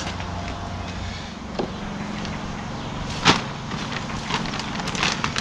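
A few sharp knocks and clicks from garden containers being handled, the loudest about three seconds in, over a steady low hum.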